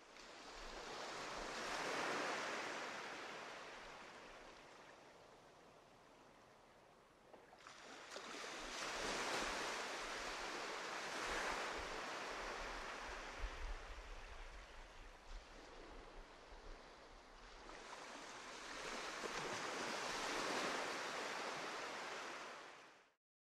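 Sea waves breaking and washing in, swelling and ebbing several times, then cutting off abruptly near the end.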